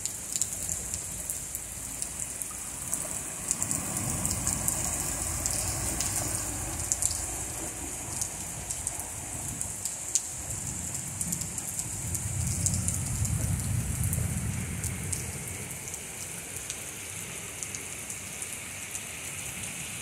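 Heavy rain pouring onto a flooded street: a dense steady hiss with many sharp drop hits close by. A low rumble swells twice, a few seconds in and again past the middle.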